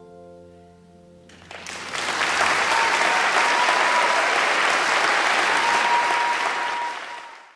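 Last notes of an acoustic guitar ringing and dying away, then audience applause starting about a second and a half in, swelling and holding, and fading out near the end.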